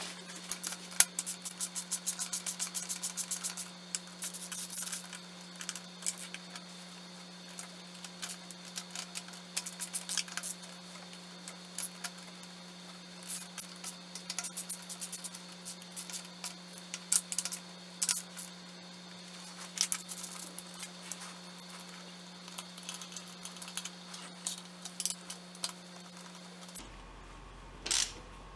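Hand ratchet clicking as bolts are tightened, with a fast steady run of clicks about a second in and then shorter runs and single clicks. A steady low hum runs underneath and stops near the end.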